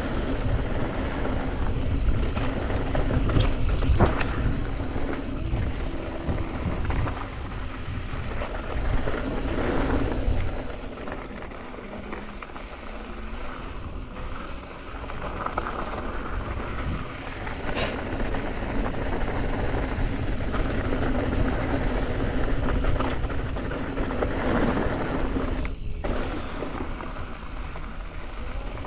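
Yeti SB165 mountain bike riding down a rough gravel trail: wind buffeting the microphone, tyres crunching over stones, and the bike rattling with sharp knocks over bumps. The wind eases for a few seconds midway.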